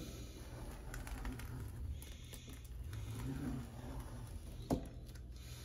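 Faint light clicking and tapping handling noises, with one sharp knock near the end.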